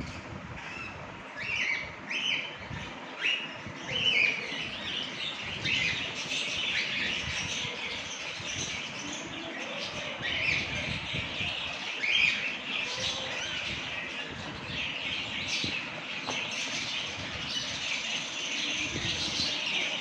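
Small parrots in an aviary, cockatiels among them, chirping and squawking in quick, overlapping calls, with a few louder calls standing out.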